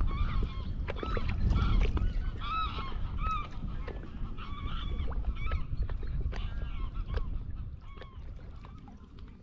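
Geese honking, a string of short calls repeating for about seven seconds, then fading. A steady low rumble runs underneath.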